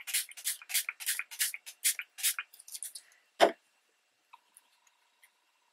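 Small fine-mist spray bottle pumped rapidly, about six short hissing sprays a second for some three seconds. Then a single thump about three and a half seconds in as the bottle is set down on the table.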